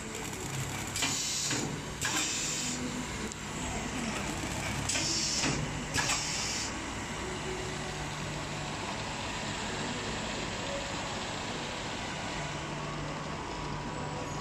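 Automatic heat shrink wrap packing machine working through a cycle: four short hisses in two pairs in the first seven seconds, the second pair with a click, over the steady hum of the running machine.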